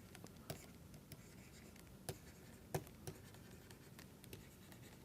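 Faint writing sounds: a pen moving and tapping on a writing surface, with a few light ticks, the sharpest just under three seconds in.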